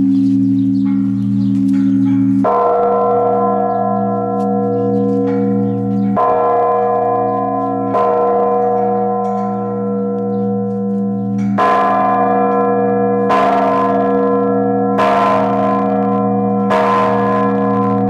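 Large bronze blagovest church bell of about two tonnes, rung by hand with a rope on its clapper: seven strokes, a few seconds apart at first and then about every second and a half, each leaving a long humming ring that overlaps the next.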